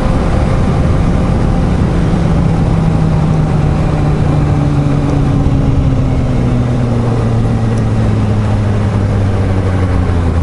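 Suzuki GSR750's inline-four engine heard on board under a steady rush of wind. The engine note falls slowly and evenly through the second half, as the bike slows off the throttle.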